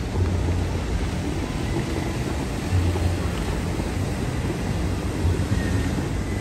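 The Bellagio fountain's water jets spraying up and falling back into the lake, a steady rushing noise with a heavy low rumble underneath.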